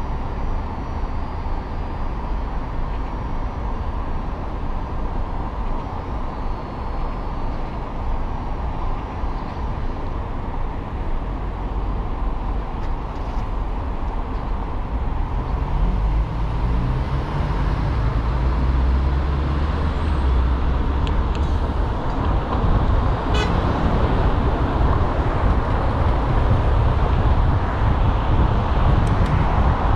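Car traffic noise at a stop light with an engine idling, then the car pulls away about halfway through: a low engine note rises and road and tyre noise grow steadily louder.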